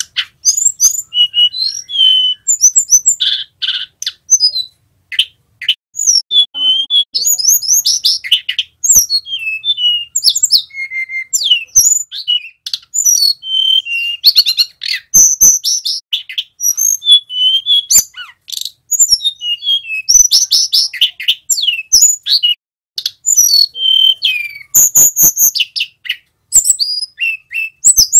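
Male hill blue flycatcher (tledekan gunung) singing a long, loud, rapid song of varied high whistles and rolling trills mixed with sharp clicking notes, with only brief pauses.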